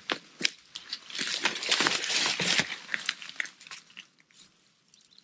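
Footsteps crunching through dry leaves and brush, with twigs snapping and crackling. The noise is loudest in the middle and dies away about four seconds in.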